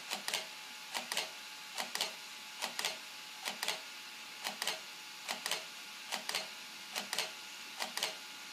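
DSLR camera shutter firing again and again, each shot a quick double click, about one shot a second, as the structured-light scanner takes its series of images of the bone. A faint steady hum lies underneath.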